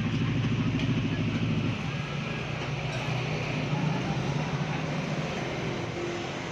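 Road traffic: a motor vehicle's engine running close by, strong for the first two seconds or so and then easing off, over a steady hum of traffic.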